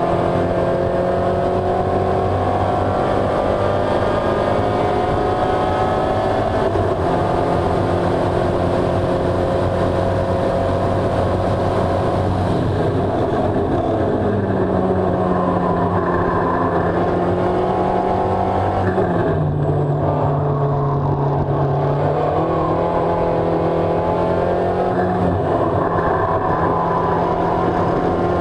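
Spec Racer Ford Gen3's Ford 1.6-litre four-cylinder engine running hard at racing speed, heard from the cockpit. Its pitch holds steady for a long stretch, shifts about 13 seconds in, dips lower for a few seconds around 20 seconds in, then climbs back up.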